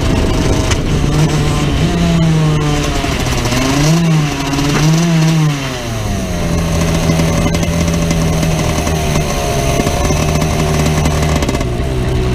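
Vortex 125cc two-stroke shifter kart engine, heard onboard while rolling slowly. Its pitch falls, rises and falls twice in quick blips about four seconds in, then holds steady at low revs.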